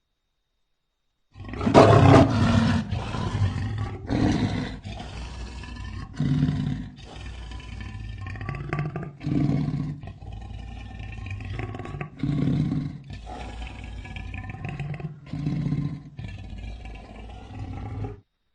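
Big-cat roar sound effect, billed as an American lion: one loud roar about a second and a half in, followed by a string of shorter roars every two to three seconds, stopping abruptly near the end.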